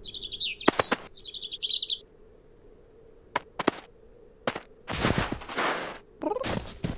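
A small cartoon bird twittering in quick high chirps for about two seconds. After that come a few sharp taps, a longer rustling rush and a short rising sound near the end.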